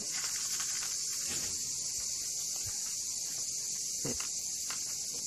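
A steady high-pitched insect chorus, with a few short faint crunches of a kitten chewing dry cat food.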